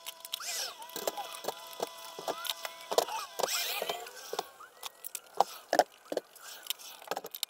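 Rapid, irregular knocks and clatter of car tires and a stepladder being handled as tires are loaded into wall racks, sped up, with short squeaks among the knocks.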